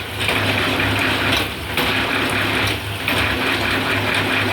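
Electric bamboo satay-skewer shaving machine running, a steady hum under a rasping hiss that swells in louder stretches about every second and a half.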